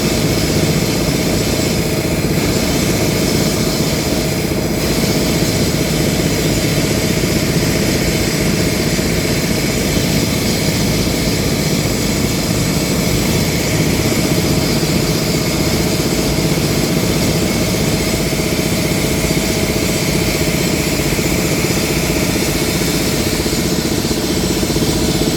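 Heavy diesel engine running steadily at a constant speed, with no blasts or impacts.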